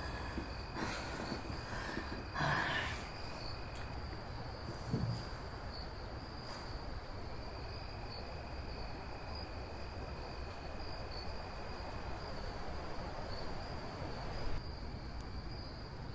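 A steady, high-pitched, insect-like trill that runs without a break over a low background hiss, joined by a fainter second tone for a few seconds in the middle. A few brief rustles come in the first three seconds and a soft knock about five seconds in.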